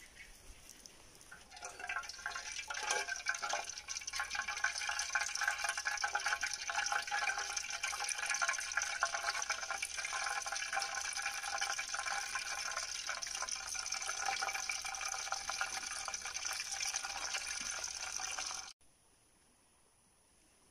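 Metal pot heating over a small campfire on a wire grill: a steady hiss with dense fine crackling, like water simmering and sticks burning. It cuts off suddenly near the end.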